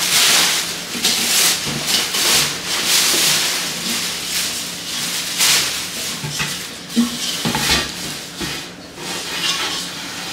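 Plastic wrapping rustling and crinkling in repeated bursts as it is pulled off a large aluminium cooking pot, with a couple of light knocks about seven seconds in.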